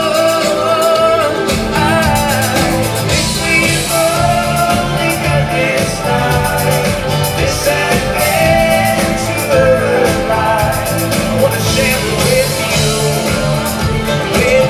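Live rock band playing: drum kit, electric guitar and a man singing into a microphone.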